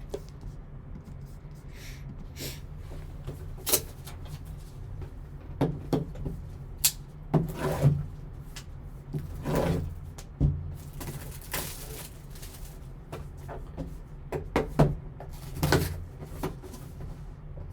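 Sports card box and its packaging being handled and opened by hand: scattered taps, rustles and short scrapes at irregular moments over a low steady hum.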